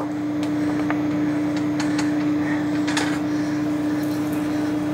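Bell pepper strips sizzling as they go into a pan of hot olive oil, over a steady hum, with a few light clicks.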